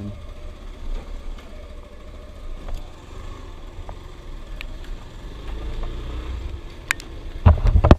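Suzuki GD110 motorcycle's small single-cylinder four-stroke engine running steadily as the bike is ridden, under a low rumble. A few loud thumps come near the end.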